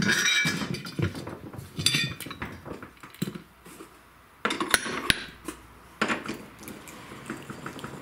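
Metal clanks and clinks as a riding-mower wheel's steel rim is set onto a manual tire changer's centre post and a steel tool piece is fitted over it. The loudest cluster of knocks comes about four and a half to five seconds in.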